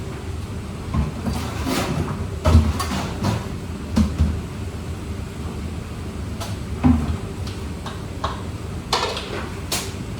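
Knocks and clunks of kitchen utensils and containers being handled and set down, several separate impacts with sharper clicks near the end, over a steady low hum.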